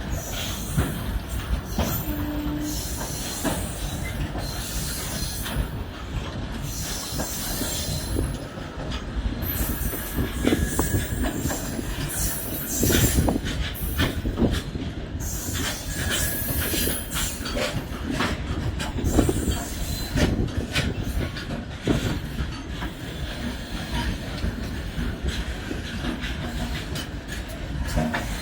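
Heavily loaded freight wagons rolling past on the track: a continuous heavy rumble of wheels on rail, broken by frequent irregular clanks and bangs, with a few brief high wheel squeals.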